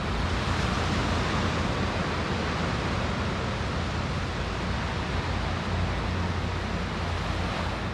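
Steady rushing wash of ocean surf along the beach, with wind buffeting the microphone as a low rumble underneath.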